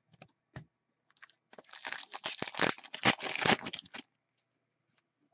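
Hockey card pack wrapper being torn open and crinkled: a couple of light clicks, then about two and a half seconds of dense crackling that stops suddenly.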